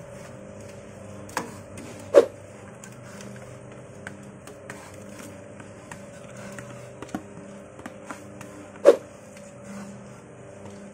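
Steady motor hum of a bakpia filling cooker-mixer, under sharp clinks of a metal ladle against the bowl and the stainless-steel hopper as mung-bean paste is scooped in. The two loudest clinks come about two seconds in and near the end.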